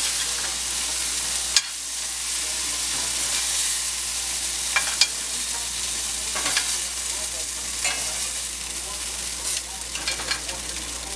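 Beef cubes sizzling in a hot cast iron skillet, with metal tongs clicking now and then against the skillet and the plate as the browned pieces are lifted out.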